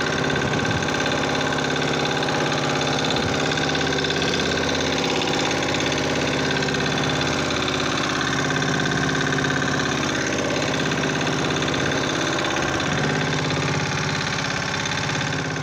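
Boat engine running steadily at an even pitch.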